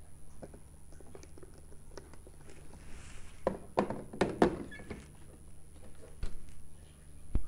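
Hard plastic clicks and knocks of a steam air fryer's removable water tank being handled and fitted into the machine: a quick cluster about three and a half to four and a half seconds in, then single thunks near six seconds and at the very end.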